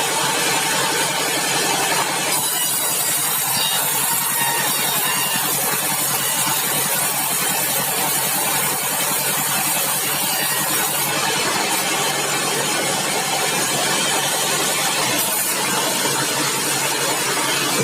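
Sawmill engine running steadily, with a brighter, hissier layer from about two seconds in until about eleven seconds in, and again briefly near the end.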